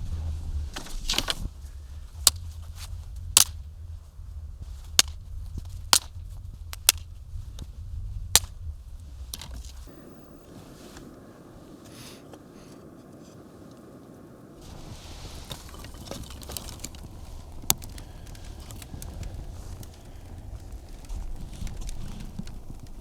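Dry sticks of firewood being snapped by hand: six sharp cracks over the first eight seconds or so. Later come smaller crackles and one loud pop.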